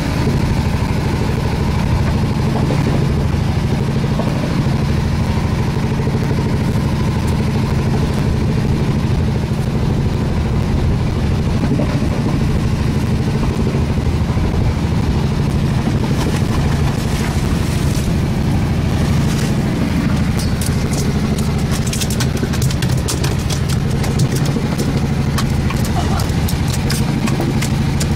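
Fishing boat's engine running steadily with a low, even hum. From about halfway through, a scatter of short sharp clicks and rattles sits on top.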